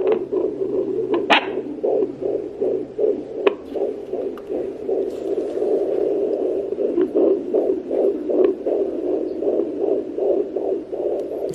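Neeva Baby fetal Doppler's speaker playing a 15-week fetal heartbeat: fast, even whooshing pulses, about two to three a second. A few sharp clicks sound over it, the loudest about a second in.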